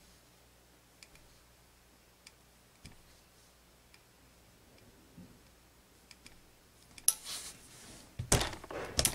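A steam iron sliding over a folded fabric strip on a worktable, giving faint ticks and taps. Near the end come a sharp click, a short rustle and two thumps as the iron is set down and the fabric is handled.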